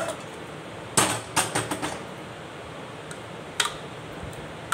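A steel spoon knocking and scraping against a metal pan and a pressure cooker as thick chana masala is scraped into the cooker: a quick run of sharp metallic knocks about a second in, then a single knock later on.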